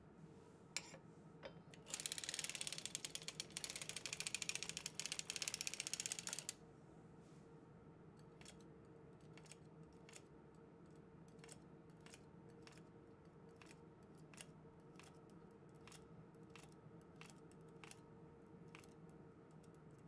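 Circular sock machine running: a fast, even clatter of metal clicks for about four seconds as the crank turns the needles past the cams. After that come single sharp clicks, roughly one or two a second, as individual needles are moved by hand into position.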